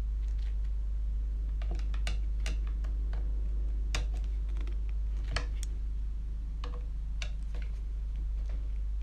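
Irregular small clicks and taps of a screwdriver working a screw into the plastic chassis tub of a Tamiya TT-02 RC car kit near the motor, with the light knocks of the plastic parts being handled, over a steady low hum.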